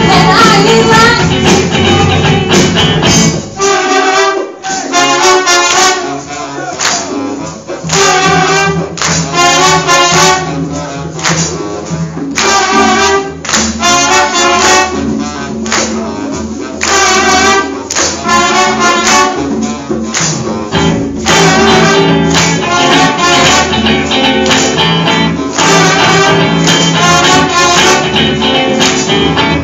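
A live soul band with a full brass section of trumpets, saxophones and trombones playing, heard through a phone's microphone. The bass end drops away briefly about four seconds in, then the full band builds back up.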